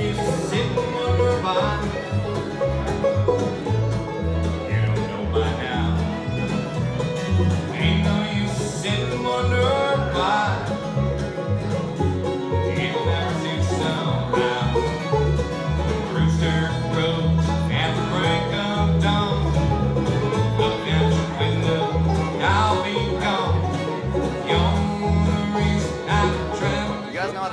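Bluegrass band playing an instrumental tune: banjo, guitar and fiddle over upright bass notes on a steady beat.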